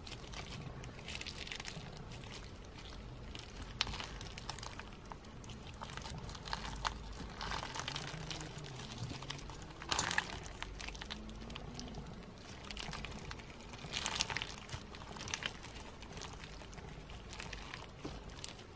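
Clear slime mixed with snowflake-shaped holographic sequins, stretched and squeezed by hand, making dense crunchy, crinkling crackles. The crackling swells into louder clusters several times, loudest about halfway through and again a few seconds later.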